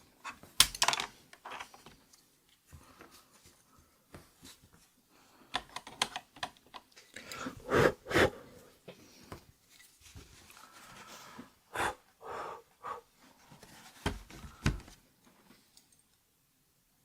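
Plastic keycaps of a mechanical keyboard clicking and clattering as they are pulled off with a keycap puller and set down one by one. The clicks come at irregular intervals, with a few louder knocks.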